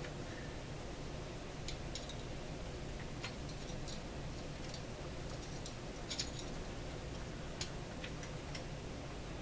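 Small irregular metallic clicks and taps of a thin hand tool working at a threaded post on a vintage shortwave radio chassis, over a steady low background hum.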